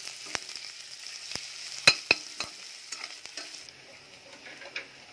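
Onions and green chillies sizzling as they fry in hot oil in a pot, stirred with a utensil that knocks and scrapes against the pot. The two loudest knocks come about two seconds in, and the sizzle dies down a little under four seconds in.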